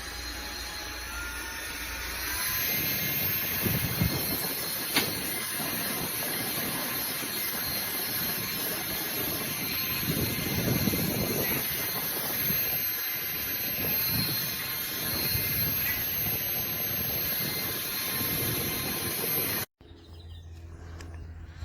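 Small high-speed handheld turbo fan running: a steady rushing whoosh of air with a thin whine that steps up in pitch and loudness about two seconds in. It cuts off suddenly near the end.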